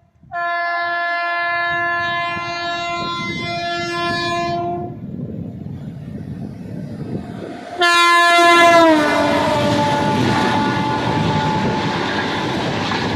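WAP-7 electric locomotive sounding its horn in a long blast, then a second blast whose pitch drops as the locomotive passes, followed by the loud rumble and wheel clatter of the express train going by.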